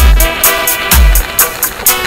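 Background music with a steady beat: deep kick drums and regular hi-hat ticks under a synth melody.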